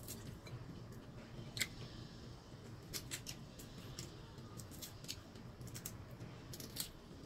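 Cooked shrimp shell crackling as it is peeled apart by hand: scattered, irregular faint clicks.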